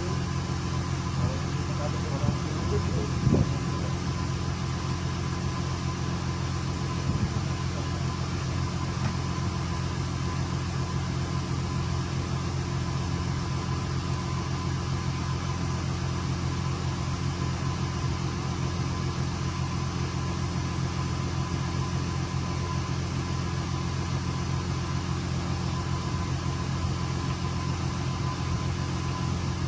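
A fishing boat's engine running steadily, a constant low hum, with a few short knocks in the first few seconds.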